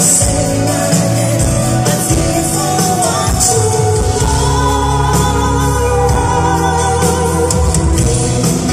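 Live band performance of a slow pop song: a sung lead vocal over keyboards, guitar and bass, recorded from the audience in an arena.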